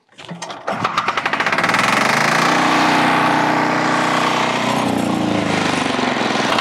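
Single-cylinder engine of a two-wheel walking tractor rope-started by hand (its starter is broken), catching on the first pull: fast knocking firing that quickly speeds up into a steady, loud running note, which shifts slightly about five seconds in.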